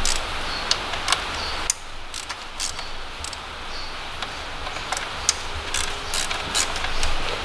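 Hand ratchet with a Torx T30 bit clicking in short irregular runs as it backs out the bolts holding brackets on the engine.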